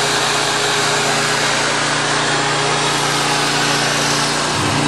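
An engine running steadily, with a loud, even rush of noise over its low hum.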